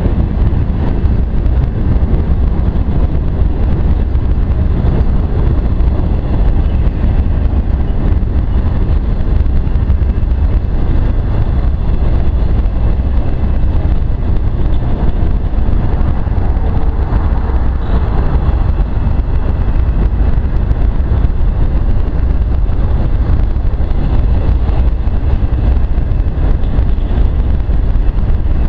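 Freight train of enclosed autorack cars rolling past close by: a loud, steady rumble of steel wheels on rail that goes on without a break.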